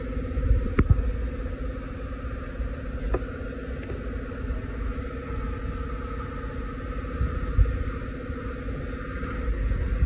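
A steady mechanical hum inside the car, with light clicks and knocks from the wiring being handled, one about a second in and another about three seconds in.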